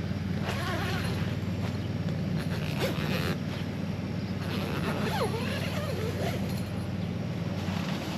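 Portable air conditioner running with a steady low hum, under intermittent rustling and clicks of gear being handled.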